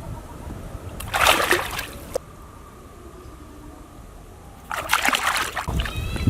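Water splashing twice, each splash lasting about a second, with quieter low rumbling in between.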